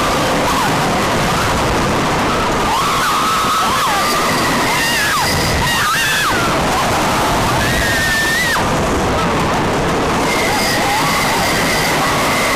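Wooden roller coaster ride: a steady, loud roar of wind on the microphone and the train running on the track. Riders' voices yell with rising and falling pitch through the middle. A steady high squeal comes in near the end.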